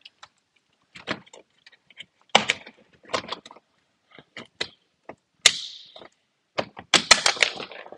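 Plastic engine-bay cover panels being pressed and snapped into place on their push pins: a series of sharp plastic clicks and knocks with some scraping, the loudest cluster near the end.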